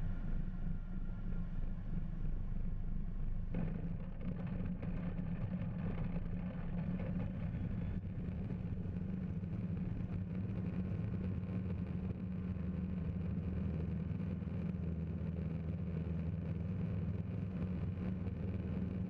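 Fly Synthesis Storch S ultralight's propeller engine droning steadily, heard from inside the open-framed cockpit as the aircraft rolls along a grass runway. The tone shifts slightly about three and a half seconds in.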